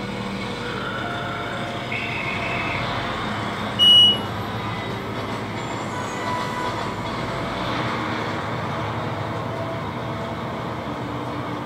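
Steady rushing hum of One World Trade Center's high-speed elevator cab climbing, with a short, loud high beep about four seconds in.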